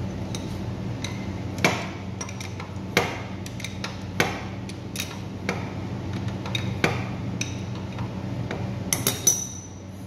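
Metal wrench clinking and knocking against the rear axle nut of an electric scooter while the wheel is being unbolted. Sharp single metallic taps come irregularly, about one every second or so, with a quick double knock near the end, over a steady low hum.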